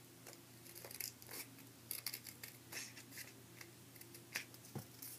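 Small scissors snipping through a cardboard toilet paper roll: faint, irregular snips roughly every half second.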